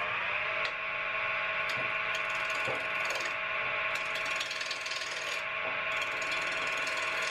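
Wood lathe turning a wooden blank while a hand-held turning tool cuts it: a steady hissing scrape of the tool on the spinning wood, with a few sharp clicks.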